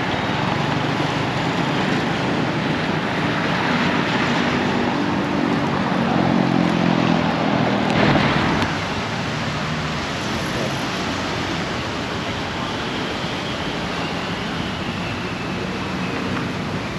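Road traffic on a busy city street: cars and motorcycles passing in a steady wash of noise, with one engine's hum louder between about four and eight seconds in.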